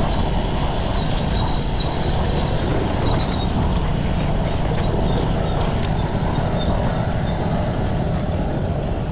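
A mountain bike rolling at speed over a rough road: a steady low rumble from the tyres and wind on the microphone, with many small irregular rattles and knocks from the bike.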